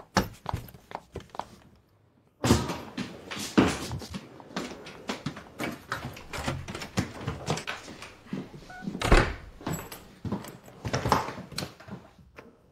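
Irregular knocks and thumps on a wooden door, starting after a brief pause about two seconds in, with one louder thud about nine seconds in.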